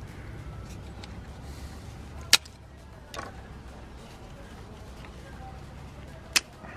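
Sharp cracks of a pressed-fibre plant pot being squeezed and broken open by hand to free a seedling: a loud one about two seconds in, a smaller one soon after, and another near the end, over a low steady rumble.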